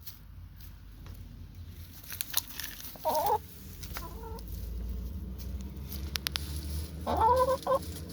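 Chickens calling around the coop: two louder drawn-out hen calls, about three seconds in and again about seven seconds in, with a fainter call between them, over a steady low rumble.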